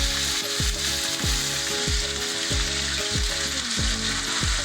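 Raw chicken strips sizzling in hot oil in a frying pan, a steady crackling hiss. Background music with a steady bass beat, about three thumps a second, runs underneath.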